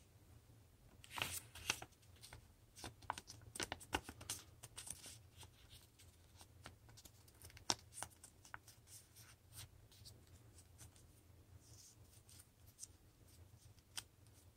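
A strip of construction paper being handled and folded into a small square: rustling and crinkling with short, sharp creasing clicks, busiest in the first few seconds and sparser after.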